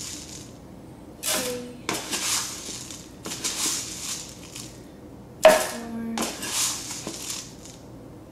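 Metal measuring cup scooping dry rolled oats and tipping them into a blender jar, twice. Each time there is a short clink of the cup, then about a second of oats pouring and rattling into the jar. The louder clink comes about five and a half seconds in.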